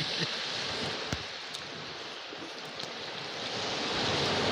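Steady wash of sea surf on the shore, swelling toward the end, with a few faint clicks over it.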